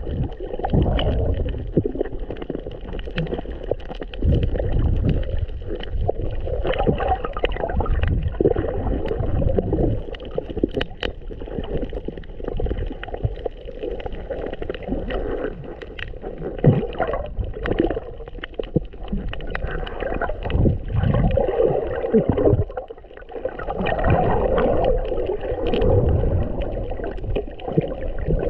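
Muffled water sloshing and gurgling heard through a camera held underwater, swelling and fading irregularly, with scattered short clicks and knocks.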